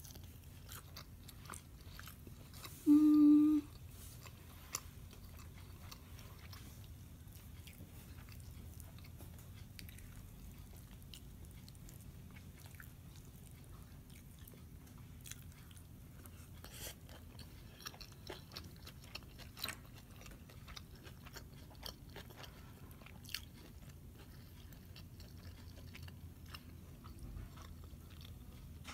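Close-up eating sounds: chewing barbecued pork rib with soft wet smacks and clicks. About three seconds in there is one short, loud "mmm" hum of enjoyment.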